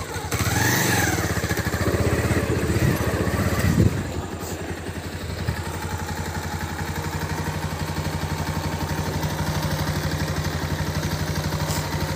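Motorcycle engine running at low speed with a fast, even firing pulse. The engine note rises and falls for the first few seconds, then settles into a steady run.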